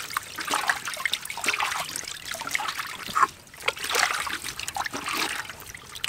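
Water splashing and trickling in a large metal basin as hands scrub and lift a crocodile, water running off its scaly hide back into the basin, with a brief lull about halfway through.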